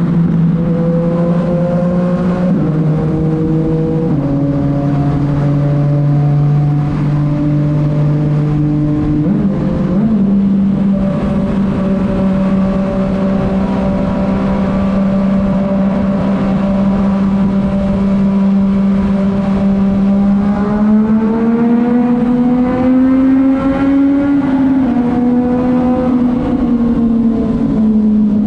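Yamaha MT-09 three-cylinder engine through a titanium Akrapovic exhaust, running at a fairly steady cruise. Its note steps down twice in the first few seconds, jumps back up about ten seconds in, then rises gradually and eases back down near the end.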